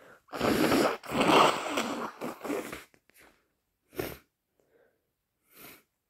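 A person with a head cold letting out forceful, wet nasal bursts: a short one about a third of a second in, then a longer one of nearly two seconds, followed by three brief quieter ones.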